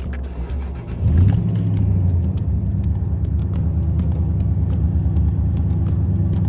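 1999 Jaguar XJ8's V8 engine starting: it catches about a second in with a brief rise in revs, then settles into a steady idle. It is the first start after a replacement A/C compressor was fitted.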